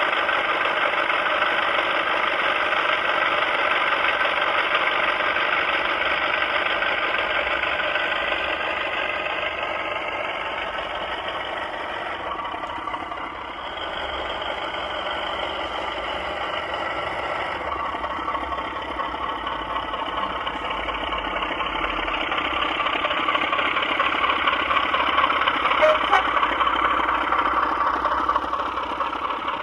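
Class 33 diesel locomotive sound (Sulzer 8LDA28 engine) played from a sound decoder through a small speaker in an O gauge model: the engine runs steadily, eases down about ten seconds in, then builds up again toward the end.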